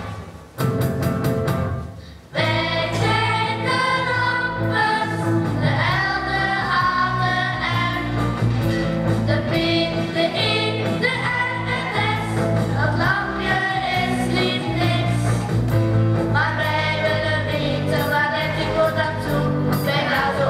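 Children's choir singing a song in Dutch with instrumental accompaniment. The sound drops away briefly near the start, and the singing comes in about two seconds in.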